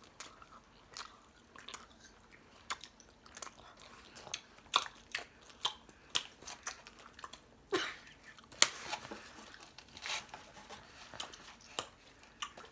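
Cookies being bitten and chewed close to the microphone: irregular crisp crunches, a few of them much louder than the rest.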